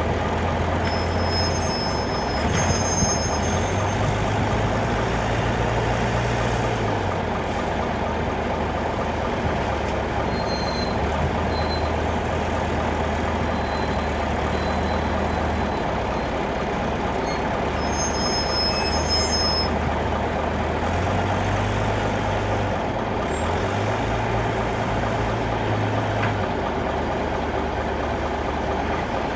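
Heavy diesel engine running steadily at low revs, its pitch stepping up a little and back down twice.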